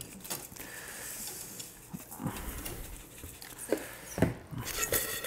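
Spice shakers shaken by hand over stainless steel bowls, the dry rub pattering onto chicken wings, with a few light knocks of shaker and tongs against the bowls in the second half.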